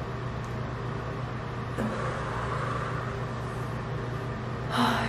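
Steady low mechanical hum and hiss of room background noise, such as a ventilation fan, with two short breathy noises from a person about two seconds in and near the end.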